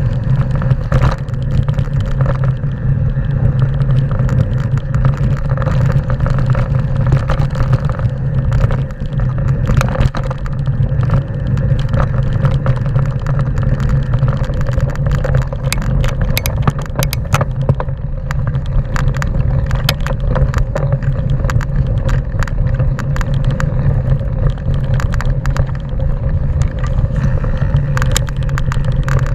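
Mountain bike riding fast down a rough gravel trail: a steady wind rumble on the camera microphone, with a constant run of clicks and rattles as the tyres and bike go over loose stones, busiest in the second half.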